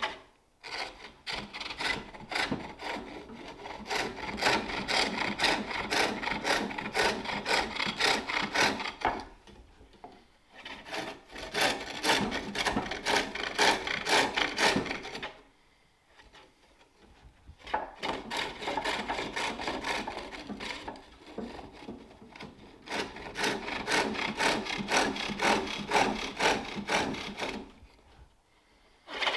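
Turning tool cutting a wooden bowl on a spring pole lathe: rapid repeated scraping cuts in spells of several seconds, broken by short pauses.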